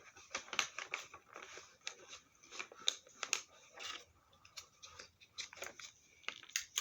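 Irregular small clicks, crinkles and rustles of items and packaging being handled by hand.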